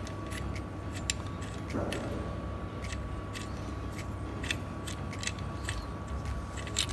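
Scattered light clicks and taps of tools and engine parts being handled during a pulley fitting, over a faint steady hum.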